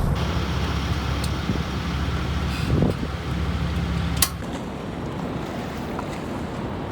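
Boat engine running steadily at low revs, its hum stopping abruptly with a click about four seconds in, leaving the hiss of wind and water.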